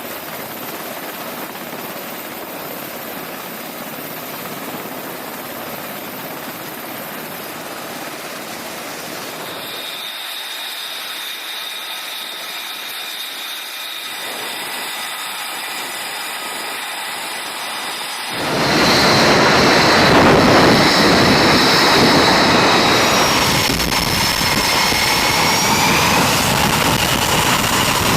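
Jet aircraft engine noise: a steady roar with a high whine, which gets abruptly much louder about 18 seconds in, its whining pitch then sliding up and down as the engine changes power.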